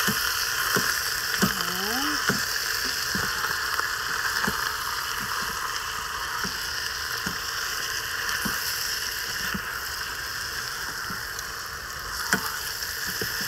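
Diced pork sizzling as it browns in an Instant Pot's non-stick inner pot on the sauté setting, a steady frying hiss that eases slightly toward the end. A silicone spatula stirs the meat, with occasional soft clicks against the pot.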